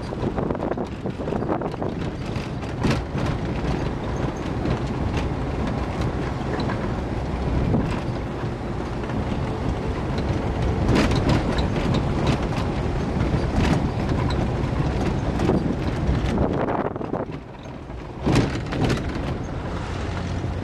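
Steady engine and road noise of a moving vehicle, with scattered knocks and rattles. The noise drops briefly about three-quarters of the way through, then a sharp knock comes.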